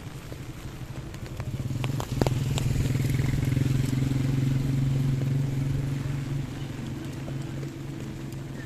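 A motor vehicle's engine passing close by: a steady low hum that grows louder about two seconds in and fades after about six seconds, with a few sharp clicks as it comes near.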